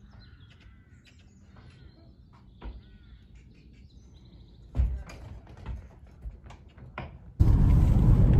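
Small birds chirping and tweeting, with a few sharp knocks. Near the end it cuts abruptly to loud, steady road noise inside a moving car.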